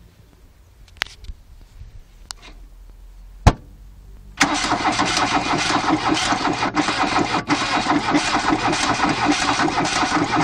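VW Caddy diesel engine on a cold, hard start: a few clicks, a sharp clack about three and a half seconds in, then the engine is cranked and churns loudly with a fast, uneven pulse for about six seconds. The owner suspects it is firing on only three cylinders, perhaps because of a valve.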